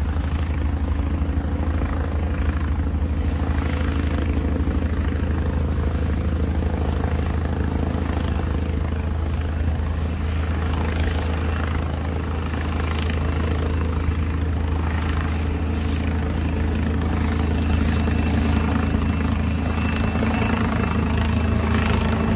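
Harbin Z-10ME attack helicopter running in flight: a steady, loud low rotor thrum with engine noise, and a faint high whine coming in past the middle.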